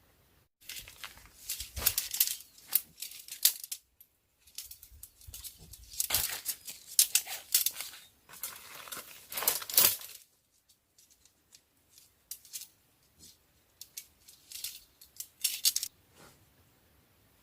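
Rustling, crinkling handling noise with small sharp cracks, in bursts: a long stretch in the first ten seconds, scattered clicks, then another burst near the end.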